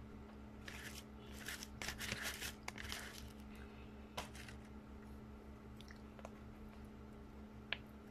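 Crisp crackling and crunching of roasted seaweed (nori) sheets for a few seconds, then a few light clicks and a single sharp tap near the end, as a metal spoon meets an aluminium foil tray.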